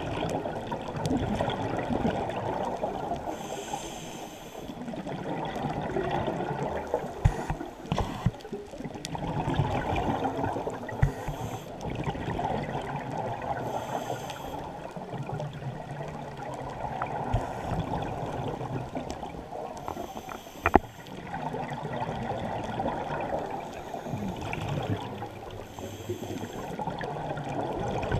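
Scuba divers breathing through regulators, heard underwater: a rush of exhaled bubbles that swells and eases every few seconds. A few sharp clicks break through, the loudest about twenty seconds in.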